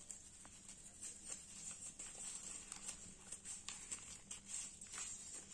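Faint rustling and crinkling of a folded paper seed packet being unwrapped by hand, with small irregular taps and clicks.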